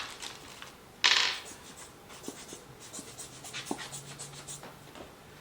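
Packing material and parts being handled: a loud, short scratchy rustle about a second in, then softer rustling with light ticks and small knocks.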